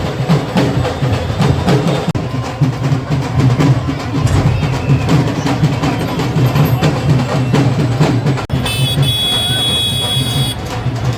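Festival procession drums beating a loud, fast, dense rhythm. A shrill high-pitched tone sounds over them for about two seconds near the end.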